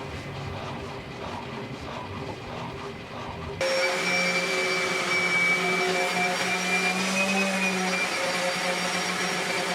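A steady electric motor whine from a workshop machine, vacuum- or sander-like, coming in abruptly about three and a half seconds in after a rougher, noisier stretch of machine sound.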